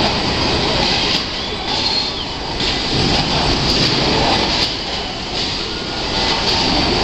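Factory-floor din of a car body assembly line with its industrial robots working: a loud, steady machine noise that swells and dips every second or so, with faint high tones running through it.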